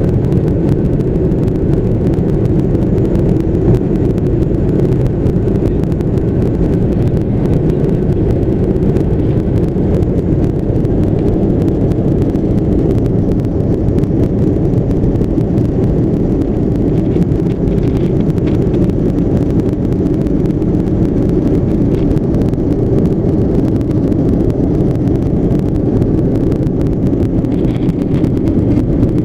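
Steady drone of an airplane in flight heard from inside the cabin: engine and airflow noise, loud and unchanging, deep-pitched with a faint steady whine above it.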